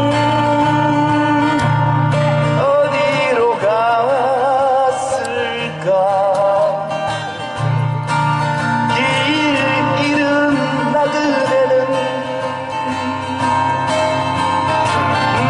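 Two acoustic guitars played live, with a man singing over them in places.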